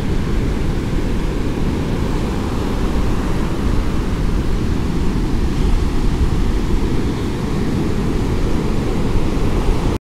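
Large storm-driven surf breaking and washing up the beach in a steady rushing noise, with wind buffeting the microphone.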